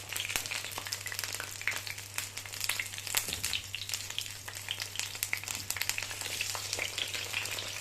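Plantain fritters frying in hot oil in a pan: steady sizzling dotted with many small crackles and pops, over a low steady hum.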